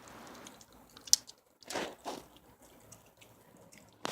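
Dogs chewing and eating their food, with a sharp click about a second in and another near the end.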